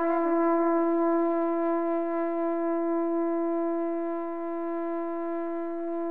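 One long held musical note with a brass-like tone, steady in pitch and slowly getting softer.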